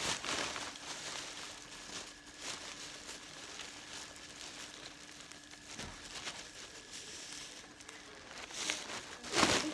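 Thin plastic carrier bag rustling and crinkling in the hands as it is shaken open and gathered up, in irregular spells, the loudest near the end. A faint steady hum runs underneath.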